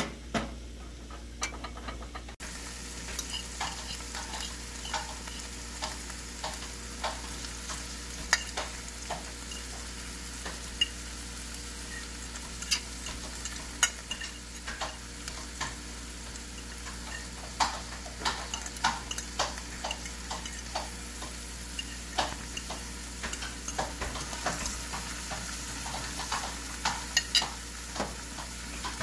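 Chopped onions and green onions sizzling in hot oil in a stainless steel frying pan, an even hiss that starts about two seconds in, with scattered sharp clicks throughout.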